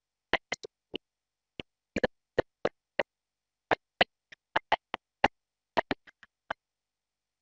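A woman's speech chopped into brief clipped fragments, a couple to a few a second with dead silence between them: the audio is dropping out, as on a broken-up video-call stream.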